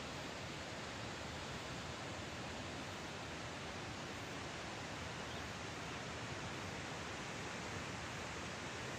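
Steady rushing of floodwater released through a hydropower dam's open gates, churning in the river below: an even, unbroken noise.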